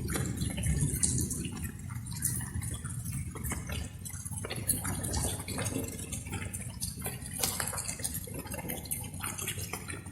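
Light rain: raindrops falling and dripping in irregular, scattered ticks over a steady low rumble.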